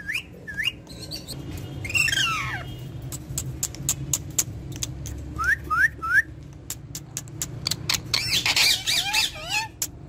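Indian ringneck parakeet giving short whistled chirps and squawky calls: a couple of rising chirps at the start, a call sweeping down at about two seconds, three quick rising chirps in a row in the middle and a burst of calls near the end. Many sharp little clicks run underneath.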